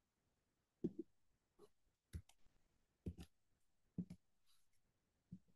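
Scattered key clicks on a MacBook Air laptop, single presses and quick pairs about once a second, over near silence.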